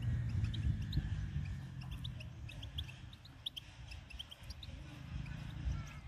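European goldfinches giving many short, high chirps, scattered irregularly, over a low rumble that eases off after a couple of seconds.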